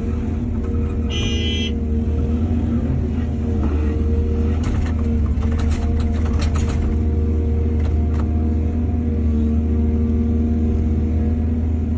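Heavy diesel engine of an excavator running steadily with a deep rumble, with scattered knocks and clatter midway through. A brief high squeal comes about a second in.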